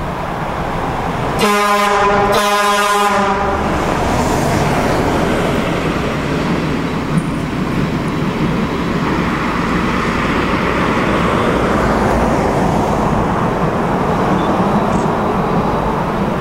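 Steam locomotive sounds two short whistle blasts about a second and a half in, then the steady rushing noise of the working locomotive and train as it approaches.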